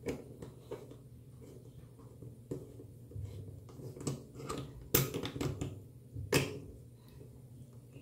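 Scattered clicks and knocks of a portable washer's quick-connect hose coupling being worked onto its faucet adapter by hand, several sharp knocks among them, the loudest about five and six and a half seconds in.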